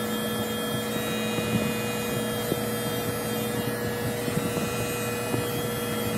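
Electric hair clippers running with a steady hum while cutting along the hairline.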